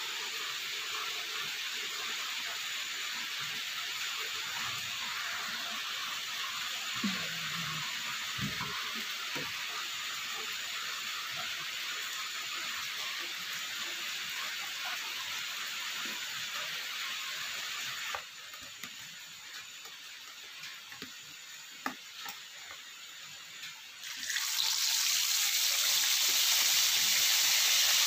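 Steady hiss of falling rain, dropping to a quieter hiss with a few light clicks about 18 seconds in. About 24 seconds in, the louder sizzle of a fish frying in hot oil in a wok takes over.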